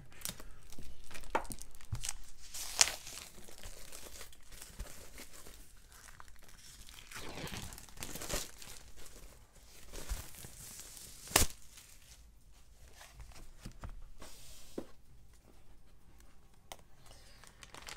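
Packaging being torn open and crinkled by hand, with sharp snaps about three seconds in and again near the middle, as a stack of cardboard board-game map tiles is freed from its wrapping.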